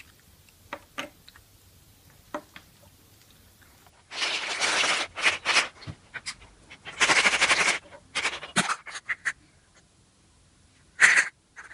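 Hard plastic handling: a few light clicks of small plastic figurines set down, then a plastic toy egg scraping and crackling as it is pulled out of its clear plastic tray and twisted open, in two long noisy stretches with clicks between, and a sharp loud click near the end.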